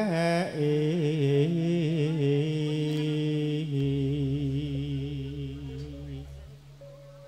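Campursari music ending a song: a wavering, vibrato-like melody line trails off over sustained chords and a low held note, all fading away near the end.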